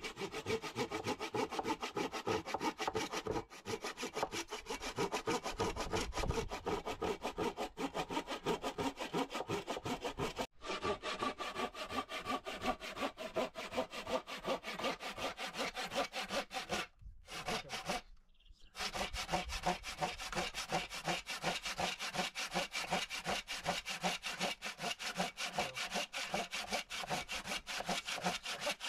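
Hand saw cutting through a wooden pole in steady back-and-forth strokes, with brief pauses about ten seconds in and again around seventeen to nineteen seconds in.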